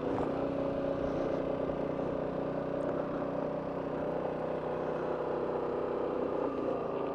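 Motorcycle engine idling steadily close to the microphone, with an even pitch that neither rises nor falls.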